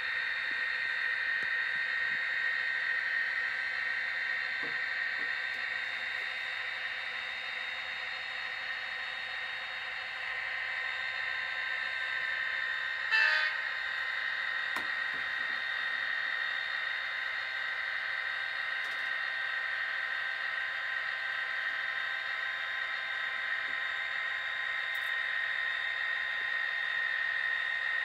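HO-scale model diesel locomotive and covered hopper cars running along the layout's track, a steady whirring hum with a high, even tone. About 13 seconds in, one brief sharp sound cuts through.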